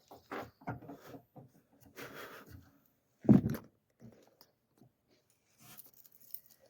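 Hand work on the wooden door edge at a hinge recess: a run of short scrapes and light knocks, with one heavier knock a little over three seconds in.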